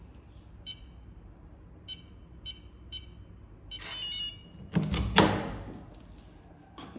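Electronic keypad door lock: four short beeps as the code keys are pressed, then a short electronic chime as it unlocks about four seconds in. Right after comes the loudest sound, clunks of the lever handle and latch as the door is opened.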